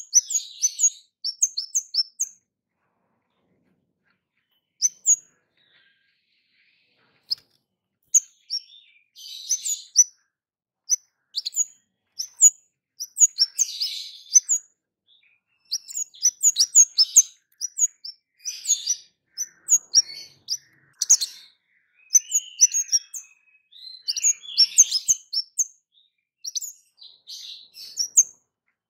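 A caged kemade giving loud, sharp 'cit' chirps. At first they come singly, with gaps of a few seconds, then in quick runs from about halfway.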